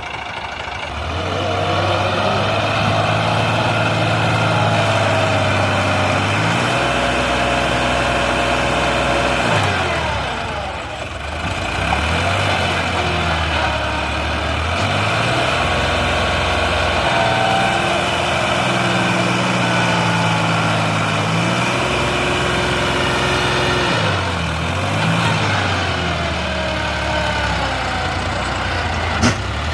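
Heavy diesel engines running and revving up and down again and again, their pitch climbing and falling. There is a sharp click near the end.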